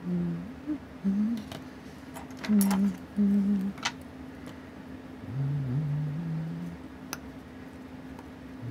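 A man humming a few low notes in short phrases while small metal watch parts and tools click lightly against the chronograph movement, about four sharp ticks, over a steady low electrical hum.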